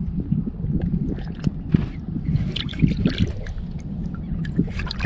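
Water sloshing and splashing against the side of a small boat as a redfish is held in the water by hand and released, with a low rumble of wind on the microphone.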